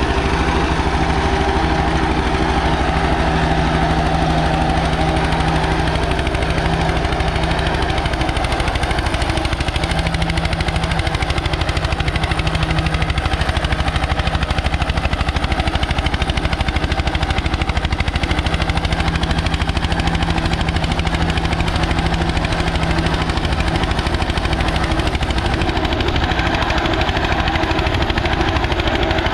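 Eicher 241 tractor's single-cylinder air-cooled diesel engine running steadily under load while pulling a tine cultivator through soil, with a rapid, even exhaust beat.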